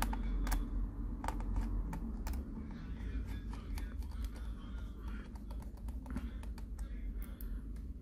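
Irregular light clicks and taps of screws and a small screwdriver against a laptop's plastic and metal chassis as the battery screws are put back, over a low steady hum.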